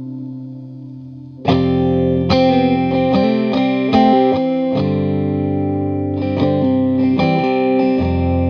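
Instrumental music without vocals. A held chord fades away, then about a second and a half in, a distorted, effects-laden electric guitar comes in loudly, picking a run of chords.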